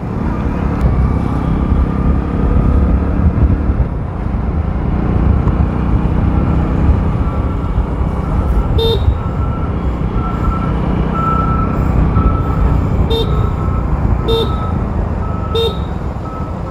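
Hero Splendor single-cylinder motorcycle running while riding, with steady engine and road rumble. Four short horn toots come in the second half.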